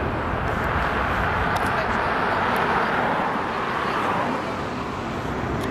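Jet airliner's engine noise heard from the ground as it climbs away after takeoff: a steady rushing sound that eases off a little near the end.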